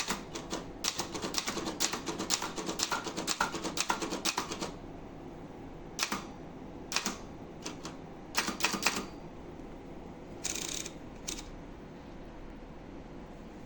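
Brother Charger 11 manual portable typewriter being typed on: a quick run of key strikes for about four and a half seconds, then a few separate strikes and a short mechanical rasp about ten seconds in.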